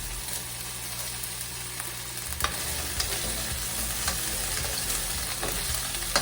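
Zucchini pieces sizzling as they sauté in hot olive oil in a frying pan, a steady hiss broken by a few short clicks.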